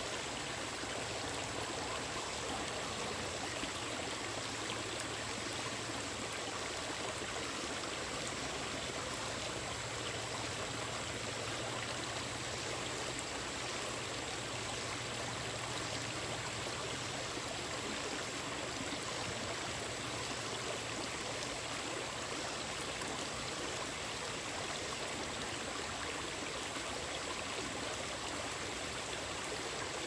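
Small, shallow stream flowing steadily over rocks, an even, unbroken rushing of water, with a thin steady high-pitched tone above it.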